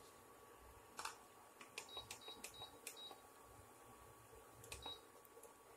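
Near silence: a few faint ticks, and a run of short high beeps about two seconds in with one more near the end.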